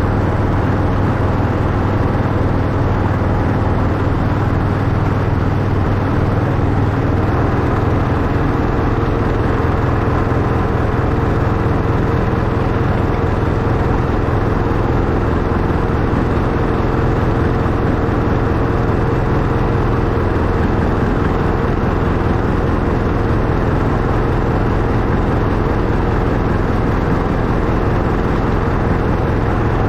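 Miniature railway locomotive, a ride-on replica of a Class 91, running steadily along the track: a continuous mechanical drone with a low hum whose tone shifts about seven seconds in.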